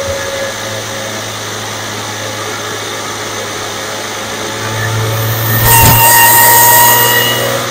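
2016 Audi S4's supercharged 3.0-litre V6 with an aftermarket intake, heard from under the engine: a low steady engine hum, then about five seconds in the engine is loaded and the supercharger whine comes up with a loud rush of intake air. It eases off near the end.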